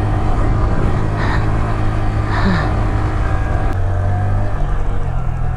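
Honda Grom 125 cc single-cylinder four-stroke engine running steadily while the bike is ridden at speed. The engine note shifts slightly about four and a half seconds in.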